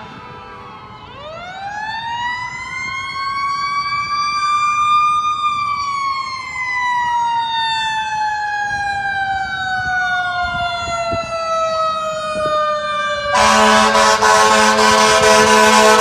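Fire engine siren winding up to a high pitch, then slowly winding down in a long falling wail. Near the end the truck's air horn blasts loudly over it.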